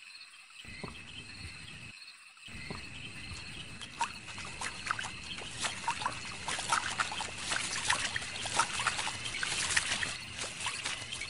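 Night flood ambience: water dripping and trickling, with short chirps and a steady high insect chirring. The drips and chirps grow busier and louder about two and a half seconds in.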